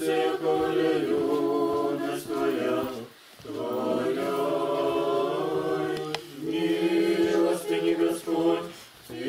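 A small group of voices singing Orthodox liturgical chant a cappella, in long held notes, with a short break for breath about three seconds in.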